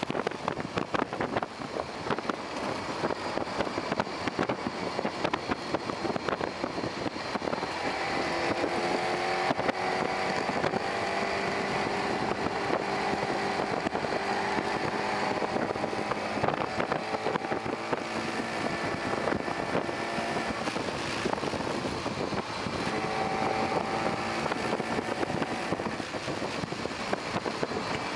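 Lightning electric car driving at speed, heard from its open cockpit: a steady rush of wind and road noise, and from about eight seconds in the electric motor's whine, rising and falling in pitch as the car speeds up and slows through the corners.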